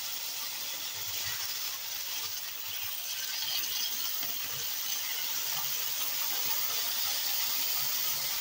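Soy sauce sizzling in hot oil in a frying pan with fried garlic and red chili: a steady hiss.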